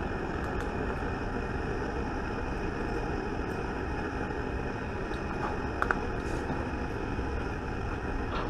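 Steady background noise, with a few faint light clicks a little before and after six seconds in.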